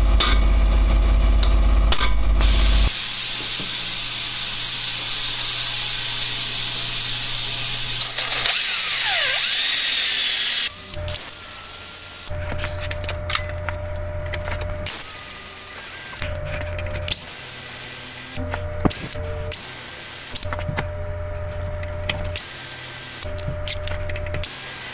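Cordless drill boring into a broken steel bolt seized in an aluminum control arm. It runs steadily at first, then in repeated on-and-off runs of a second or two with a steady whine as the bit cuts. A loud low hum is heard for the first three seconds.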